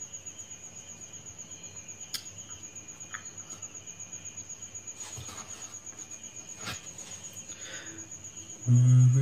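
A cricket chirping steadily, a high trill pulsing about seven times a second. A loud low voice comes in near the end.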